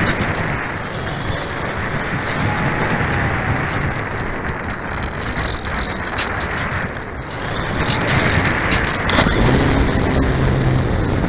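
Rushing airflow and rattle picked up by a camera mounted on a radio-controlled glider in flight. About eight seconds in, a low steady hum joins and the sound gets a little louder.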